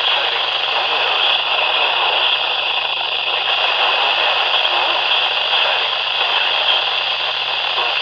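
Midland handheld weather radio tuned to the NOAA weather frequency 162.500 MHz, giving out a steady hiss of static from its speaker over a low steady hum.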